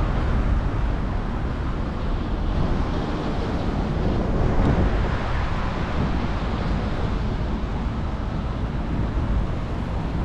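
Wind buffeting the microphone in a steady low rumble, over the rush of a flowing river.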